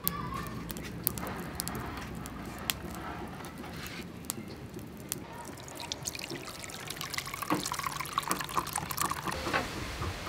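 Coconut milk pouring through a wire-mesh sieve into a ceramic bowl, trickling and splashing, heavier from a little past the middle. Scattered sharp clicks in the first half.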